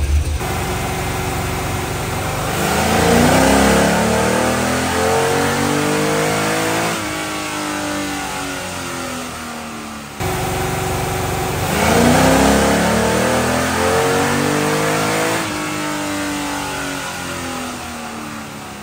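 V8 engine in a compact pickup on a chassis dyno, revved hard in two pulls. Each time the pitch swells to a loud peak and then falls away as the revs drop. The owner thinks the engine is a cammed 6.0-litre.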